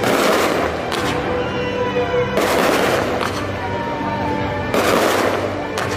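Aerial fireworks shells bursting overhead, a sharp bang about every second, over music playing.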